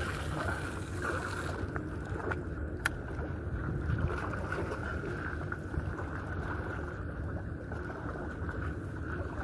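Steady wind noise on the microphone with water sounds from the harbour, and a few light clicks, the sharpest about three seconds in.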